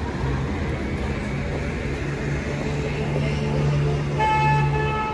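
Street traffic with a steady low engine hum; near the end a vehicle horn sounds once, held for under a second.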